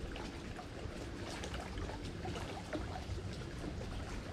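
Small waves lapping and splashing against the bank, a steady run of little wet crackles over a low wind rumble on the microphone.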